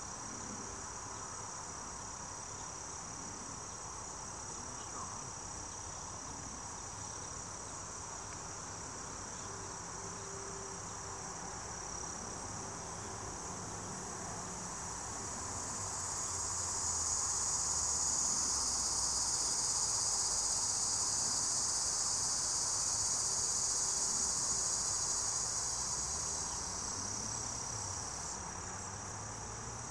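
Outdoor insect chorus: a steady high-pitched trilling, joined about halfway through by a louder buzzing that swells up and fades again near the end.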